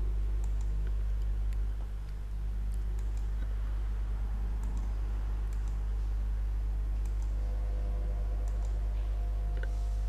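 A steady low electrical hum runs throughout, with a few faint, scattered clicks.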